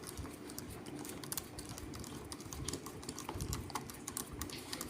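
Light, irregular clicks and taps of a molded plastic circuit breaker case and its small parts being handled.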